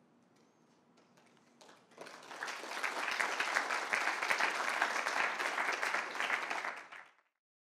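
Audience applauding: the clapping swells about two seconds in and cuts off abruptly about five seconds later.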